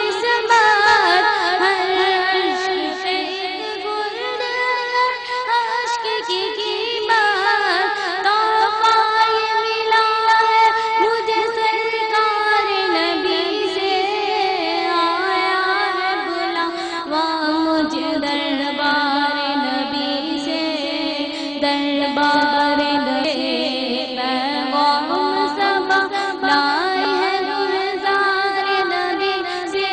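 A boy singing a naat, a devotional poem in praise of the Prophet, into a microphone, in long melodic lines with held, ornamented notes.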